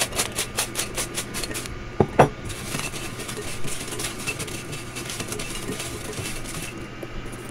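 Fried crinkle-cut potato chips being tossed in a glass bowl with spices. The chips clatter against the glass in quick clicks, about five a second, for the first second and a half. Two louder knocks follow about two seconds in, then softer rustling as they are stirred by hand.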